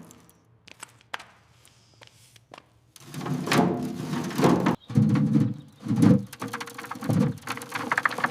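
A few faint clicks, then from about three seconds in a run of irregular knocks and thuds, with scraping between them, typical of building work.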